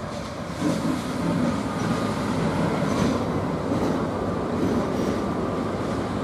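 Freight train hauled by electric locomotives rolling past, a steady rumble of wheels on the rails that steps up a little under a second in.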